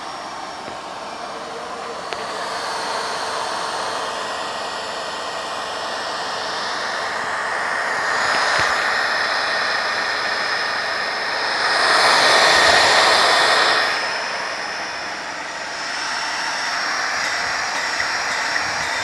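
Corded electric hand drill running steadily, its long bit boring into the trunk of a palm, with a held whine; it gets louder for about two seconds around two-thirds of the way through.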